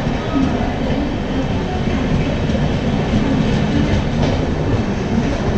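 Red-and-grey LHB passenger coaches of an Indian Railways express rolling past close by, a steady rumble of wheels running on the rails.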